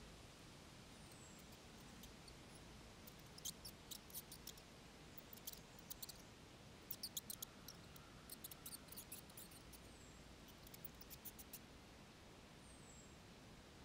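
Mice squeaking: many short, very high-pitched squeaks in quick clusters over several seconds, over a quiet background, with a few faint high falling chirps.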